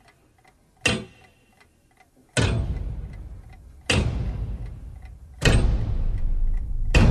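Film-title sound design: a quick clock ticking under deep sudden hits about every one and a half seconds. Each hit rings out, and the hits last longer as they go on.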